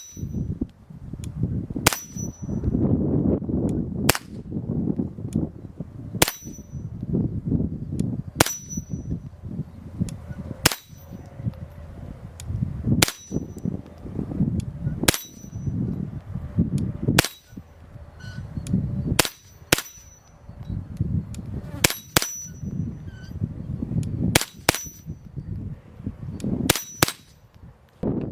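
H&K 416-22 semi-automatic rimfire rifle firing .22 LR Winchester white box rounds. Single shots come about every two seconds, with a few quicker doubles in the last third. Several shots are followed by a brief high ring. Wind rumbles on the microphone between shots.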